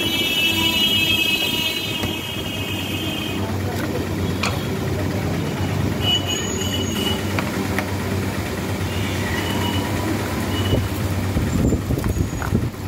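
Steady rumble of road traffic, with a horn-like tone for the first three seconds or so and a few short high beeps later. A few clicks and rustles come from a phone box's charger, cable and papers being handled.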